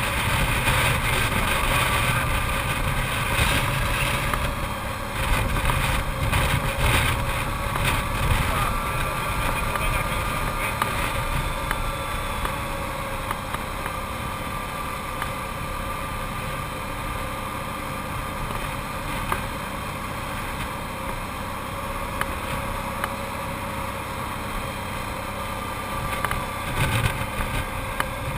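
Arctic Cat TRV 1000 ATV's V-twin engine running steadily under way, with wind buffeting the microphone in gusts, heaviest in the first several seconds and again near the end.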